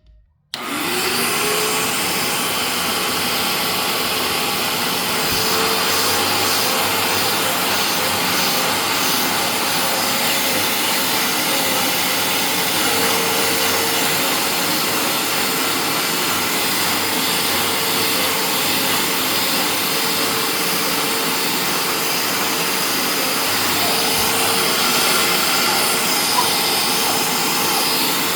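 Bissell 3698 wet carpet cleaner switching on about half a second in, its motor spinning up with a rising tone, then running steadily.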